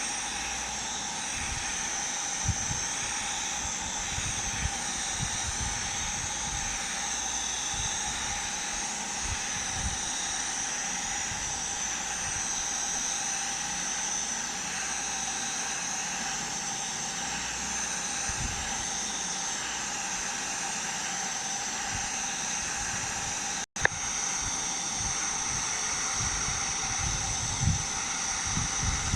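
Electric arc welding on a pipe joint in the 5G position: a steady sizzling hiss of the arc with scattered faint low knocks, cutting out for an instant about 24 seconds in.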